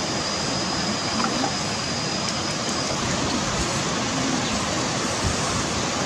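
Steady, even rush of stream water flowing over rocks.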